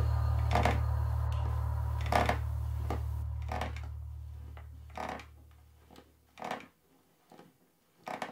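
A low drone from the film's score fades out over the first six seconds, while a wooden rocking chair creaks in a slow, steady rhythm, about once every one and a half seconds.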